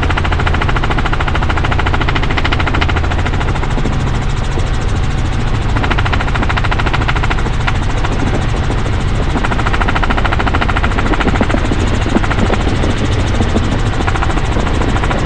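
Helicopter in flight, its rotor and engine running steadily: a fast, even chopping of the blades over a low drone.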